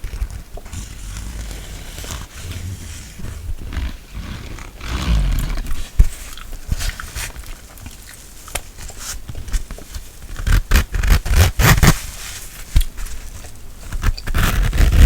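Close-miked ASMR microphone brushing: scratchy rubbing on the microphone with low rumbles and sharp clicks, growing busier about ten seconds in.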